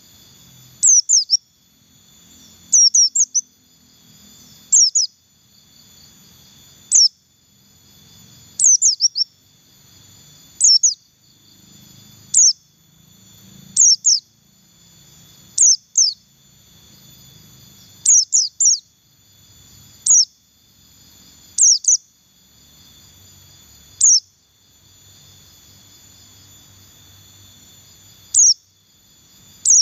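Pleci buxtoni white-eye calling: short, sharp, high chirps that fall in pitch, singly or in quick runs of two to four, about every two seconds. A faint steady insect whine runs behind them.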